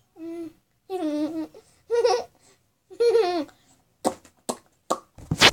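A girl's voice making four short playful vocal sounds, giggly and sing-song, about a second apart. Then a few sharp knocks, with a loud thump near the end.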